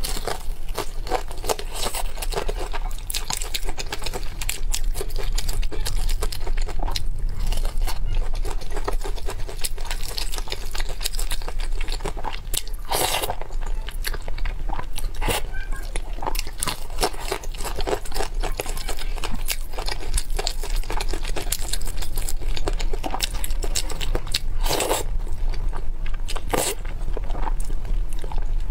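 Close-miked eating: crisp crunching bites into cheese-coated fried chicken and steady chewing, with a few slurps of sticky spicy instant noodles.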